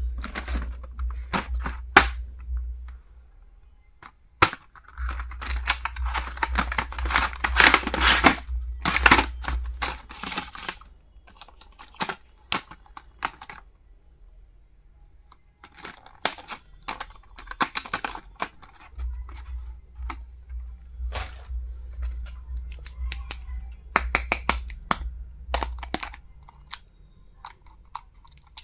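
Stationery packaging being handled and opened: plastic crinkling and tearing in stretches, with sharp clicks and taps of items being handled, over a low hum that comes and goes.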